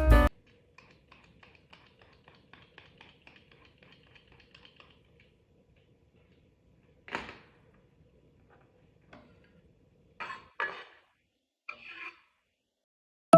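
Kitchen handling sounds: a run of faint light ticks and taps for the first few seconds, then a few separate louder knocks and clatters of dishes or utensils being set down.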